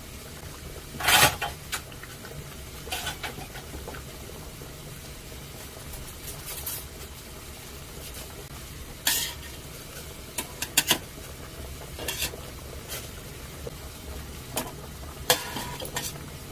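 A utensil stirring in a stainless steel pot, knocking and clinking against its side about a dozen times at uneven intervals, the loudest knock about a second in. Underneath is a steady low hiss of the pot boiling on the gas stove, full enough that it was just boiling over.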